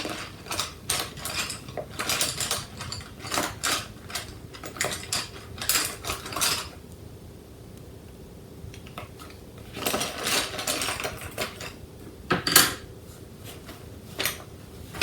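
Small hard objects being handled, clicking and rustling in irregular clusters, with a sharp knock about twelve and a half seconds in.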